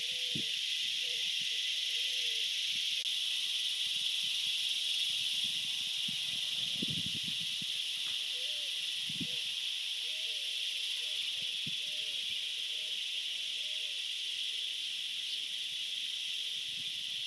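Steady, high-pitched buzz of cicadas in the trees, unbroken throughout, with a few soft low bumps underneath.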